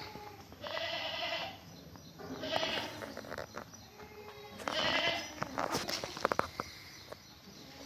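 Newborn goat kids bleating: three high calls about two seconds apart, the middle one weaker. Scattered light clicks and rustling follow.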